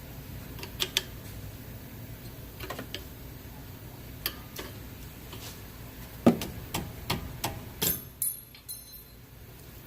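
Flathead screwdriver prying and tapping at a fitting on a Nissan Sentra front strut: scattered metal clicks, then a run of sharper knocks with the loudest about six seconds in. Near the end, a few knocks ring briefly like struck metal.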